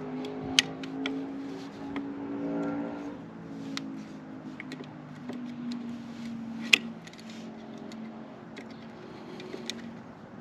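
Scattered sharp metallic clicks and taps of hand tools and hardware as a cotter pin is worked into a floorboard hinge, the loudest click about two-thirds through. Under them a vehicle engine hums, wavering in pitch and fading after the first few seconds.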